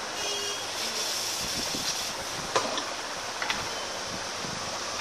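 Steady background hiss with a few small sharp clicks, the two loudest about a second apart in the middle, as small parts of a Samsung Galaxy Camera are handled and fitted by hand.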